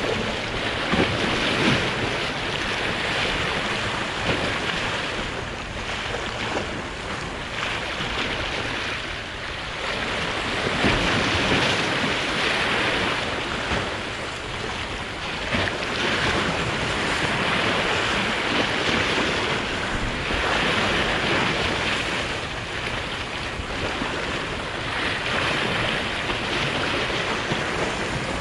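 Sea waves surging and splashing against a concrete-block breakwater, swelling every four or five seconds, with a strong wind buffeting the microphone.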